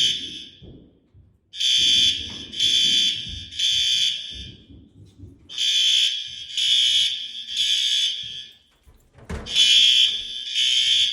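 Building fire alarm sounding a loud, high-pitched tone in the temporal-three evacuation pattern: three pulses about 0.7 s apart, then a pause of about a second and a half, repeating. The new system is being tested.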